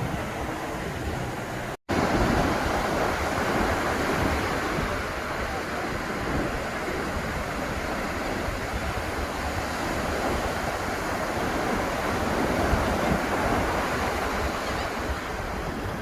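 Ocean surf breaking and washing up the beach in a steady rush, with some wind on the microphone. The sound cuts out completely for an instant just under two seconds in, then the surf comes back louder.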